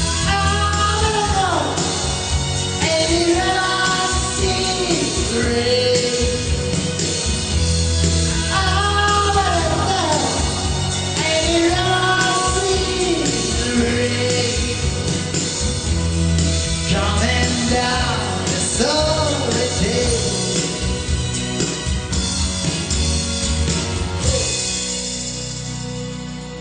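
Pop-rock song with a steady beat and bass under a melody line that glides between long held notes. Near the end the beat and bass drop out and the music grows quieter.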